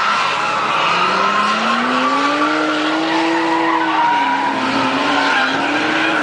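Drift cars on the track: an engine revs up over a couple of seconds, eases off and climbs again near the end, over continuous tyre squeal from cars sliding sideways.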